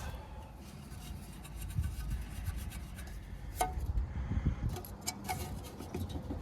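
Scraping, rubbing and a few sharp clicks and knocks as a fan blade is worked onto the motor shaft of a Carrier mini-split outdoor unit, over a low rumble.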